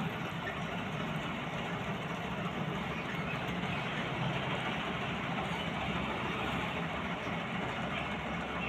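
Combine harvester's engine and cutting machinery running steadily as it harvests rice paddy.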